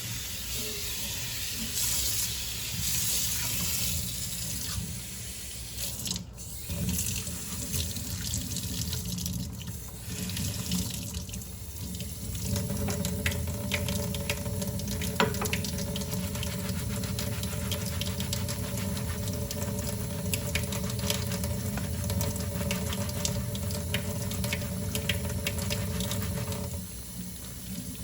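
Tap water running into a kitchen sink while dishes are hand-washed, with scattered light clinks of dishware. About halfway through, the water settles into a steadier, fuller flow.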